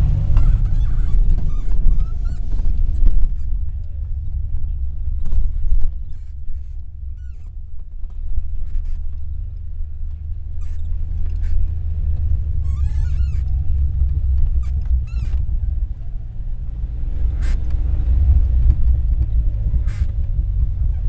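Low, steady rumble of a 4x4 driving slowly over a snowy dirt track, heard from inside the cabin, with scattered knocks and clicks and a few short squeaks from the bouncing vehicle.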